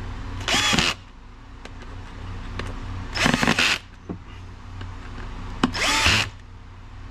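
Cordless drill/driver driving screws into a small enclosure lid in three short bursts, each with the motor's whine rising as it spins up, about every two and a half seconds, cinching the lid down.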